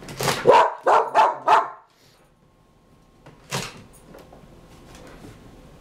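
Dog barking at a dishwasher as its door is moved: four quick barks in a row, then a single bark a couple of seconds later.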